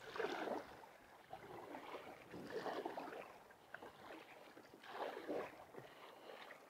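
Water splashing and sloshing around a sit-on-top kayak, in three louder surges a couple of seconds apart.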